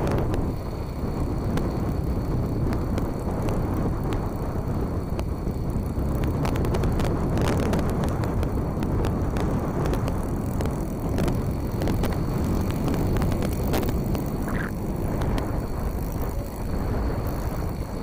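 Strong wind buffeting the microphone, over the running motor of a scale SNCAN Stampe SV.4B model biplane as it taxis and takes off.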